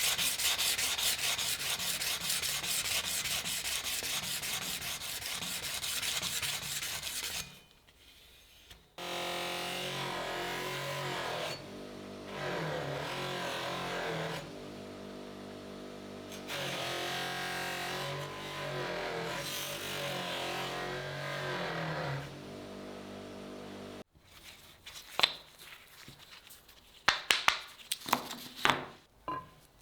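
Rapid back-and-forth abrasive rubbing on the steel of a meat cleaver. After a short pause comes about thirteen seconds of a power tool running with a wavering pitch, then a few sharp knocks near the end.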